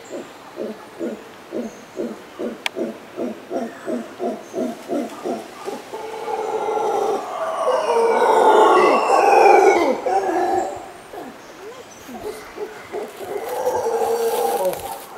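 Mantled howler monkey howling: a run of rhythmic grunts, about three a second, that builds into a loud, long roar in the middle, with a second, shorter roar near the end.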